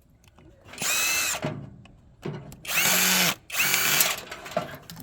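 Power drill running in three short bursts, each half a second to a second long, its motor whine shifting in pitch as it backs screws out of a microwave.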